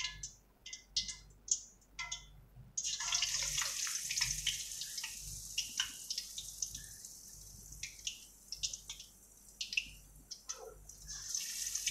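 A besan-batter-coated aloo tikki frying in hot oil in an iron karahi. A few crackles come first, then a sudden hissing sizzle starts about three seconds in, with pops and spits through it. The sizzle eases off and then swells again near the end.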